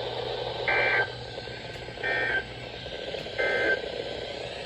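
Weather radio broadcast: three short bursts of SAME digital data tones, about 1.3 s apart, over steady radio hiss. They are the end-of-message code that closes a severe thunderstorm warning.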